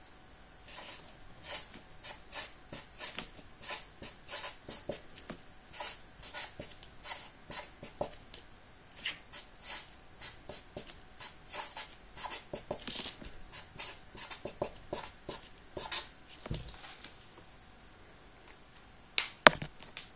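Felt-tip marker scratching across paper in quick short strokes while lettering words, stopping about three seconds before the end. Near the end come two sharp clicks close together, the loudest sounds.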